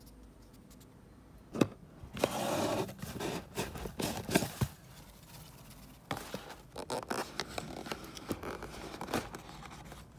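Cardboard boxes and paper being handled: a sharp tap, then a loud crackling rustle from about two to five seconds in, and quieter rustling with scattered clicks after that.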